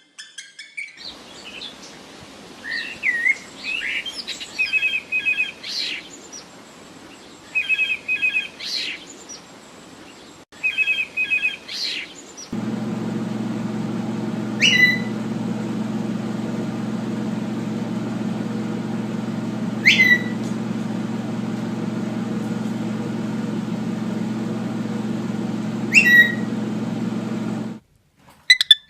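Cockatiel chirping and whistling, repeating a short warbled phrase three times. Then, over a steady low hum, it gives single sharp, falling chirps about every five to six seconds.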